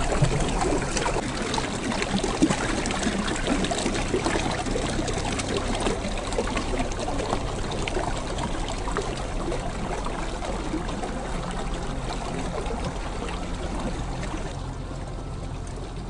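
Small, partially frozen stream trickling and splashing over rocks and ice, a steady wash of water dotted with small drips and splashes. The brighter, higher splashing drops away about three-quarters of the way through.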